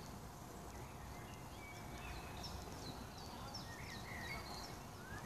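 Faint outdoor ambience: small birds chirping in short, quick calls over a low steady rumble, the calls coming thicker from about two seconds in.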